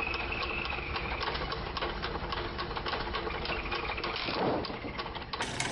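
Dongfeng-type single-cylinder diesel engine running steadily with an even, rapid knock, belt-driving a homemade circular-saw bench. A thin high whine sounds over the first two seconds, and a brief louder rush comes about four and a half seconds in.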